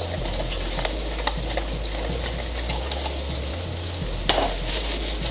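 Small cardboard box being opened and a plastic-bagged power adapter pulled out: cardboard scraping, plastic crinkling and light clicks, with a louder crackle about four seconds in. A steady low hum runs underneath.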